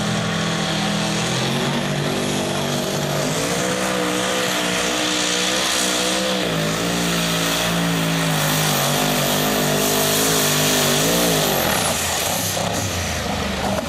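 Turbocharged two-wheel-drive pulling truck's engine at full throttle, dragging a weight-transfer sled. Its pitch climbs a few seconds in, then wavers up and down, with a thin high whine above it. Near the end the steady engine note breaks up into rough noise.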